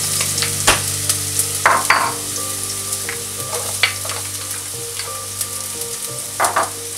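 Chopped onion and garlic sizzling in hot oil in a pot, with a few scrapes and taps of a plastic spoon against the pot as the pieces are knocked in.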